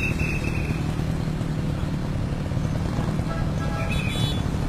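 Stand-up gas scooter's small engine running steadily while riding, under a heavy rush of wind on the microphone.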